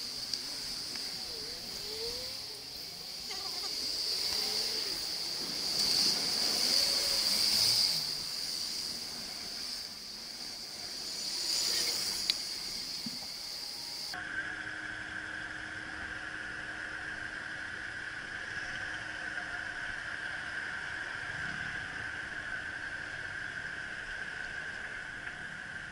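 Slow city traffic and wind noise picked up from an electric bicycle weaving between queued cars, under a steady high-pitched whine. The loudness swells a few times. About halfway through, the sound changes abruptly and the whine drops to a lower steady pitch.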